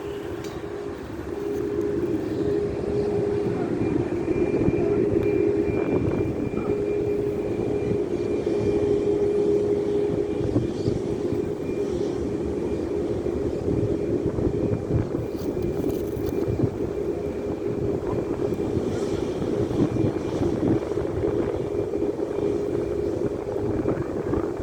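Boeing 737 MAX 8 jet airliner with its CFM LEAP-1B turbofan engines running at high power: a loud, steady roar with a held low tone and a faint high whine, swelling over the first couple of seconds and then holding.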